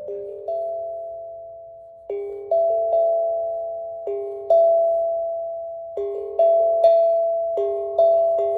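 Steel tongue drum (Panda drum) played slowly: clusters of two or three struck notes about every two seconds, each note ringing out and fading.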